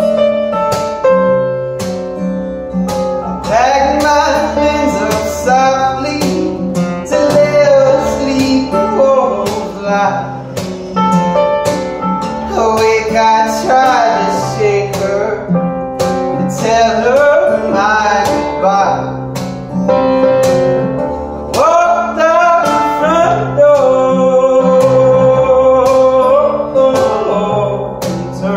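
Live acoustic duo: an acoustic guitar and a Korg keyboard play together under a man singing a sustained melody, the voice coming in a few seconds in.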